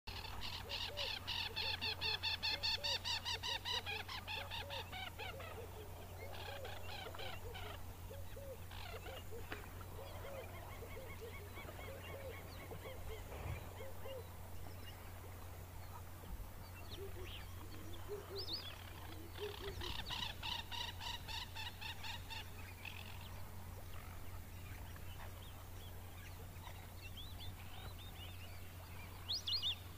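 Wetland birds calling: a fast run of repeated notes at the start and again about two-thirds of the way through, with lower repeated notes and scattered single calls in between, over a steady low hum.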